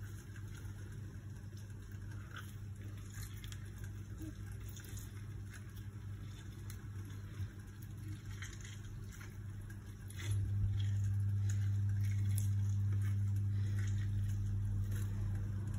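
A lemon half squeezed by hand over raw catfish pieces in a plastic basin, giving faint wet squishing and dripping. A steady low hum runs underneath and gets clearly louder about ten seconds in.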